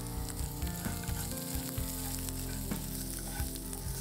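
Hot oil sizzling in a pan of tadka (tempering: mustard seeds, curry leaves, chopped garlic and ginger, a pinch of turmeric) as a silicone spatula stirs it, with a few light knocks of the spatula against the pan.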